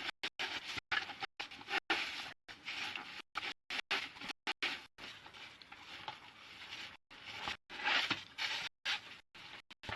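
Netting rustling and rubbing against a dustpan in irregular scrapes as it is pushed and worked into place by hand.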